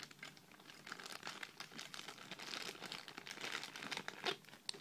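Faint crinkling of a clear plastic bag being handled as a toy ruler and pen are worked out of it, with a couple of sharper crackles near the end.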